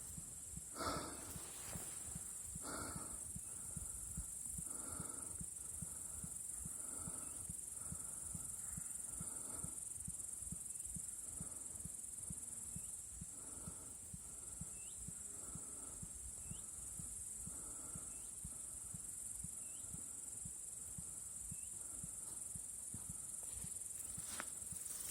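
Steady high-pitched insect chorus, crickets or similar, with faint soft sounds about once a second and a few short bird chirps in the middle.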